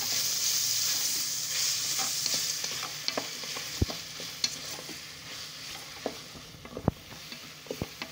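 Chopped vegetables and spices frying in oil in a rice cooker's non-stick pot, sizzling as a spoon stirs them. The sizzle is strongest for the first two and a half seconds, then fades, and the spoon taps sharply against the pot now and then.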